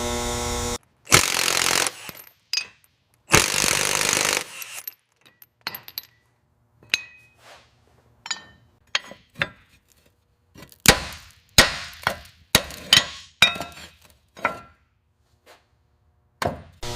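Hand work on metal: two loud bursts of hissing noise, about a second each, near the start, then a run of sharp metallic clicks, knocks and clinks, some ringing briefly.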